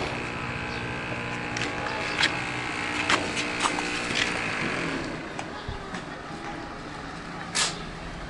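An engine running steadily close by that fades out about halfway through, with scattered sharp clinks and knocks and faint voices.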